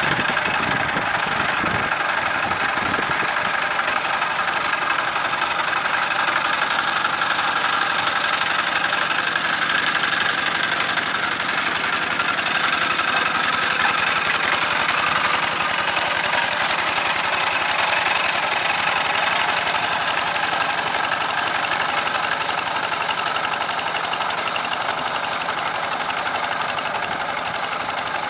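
Old Kubota single-cylinder diesel engine on a walk-behind hand tractor, running steadily under load as the tractor's cage wheels level a flooded rice paddy. It gets slightly quieter near the end.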